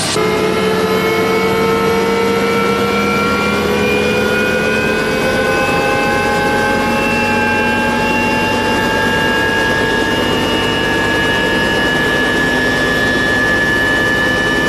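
UH-1 Huey helicopter's turbine engine winding up: a loud whine over a rushing noise, its several tones slowly and steadily rising in pitch.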